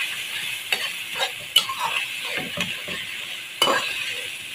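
Chicken pieces frying in hot ghee in a metal kadai, sizzling steadily while a metal spoon stirs them round the pan. The spoon scrapes and clicks against the pan several times, most sharply about three and a half seconds in.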